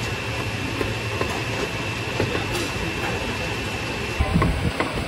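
Steady machine-like noise with a faint high whine running through it, and a few short knocks and clatters about four seconds in.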